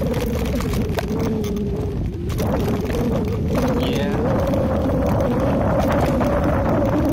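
Mountain bike rolling down a dirt trail, heard from a handlebar camera: steady rumble of tyres on dirt and wind on the microphone, with a wavering hum and frequent small knocks and rattles as the bike goes over bumps.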